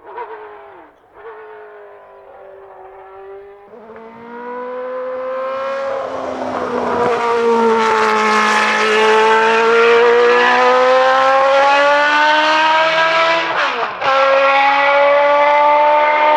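Benetton B190's Ford HB V8 Formula One engine at high revs: quieter at first, then growing loud from about four seconds in as the car comes close, its note sliding gently down and up. Near the end there is a short break and a drop in pitch, a gear change, before it pulls on.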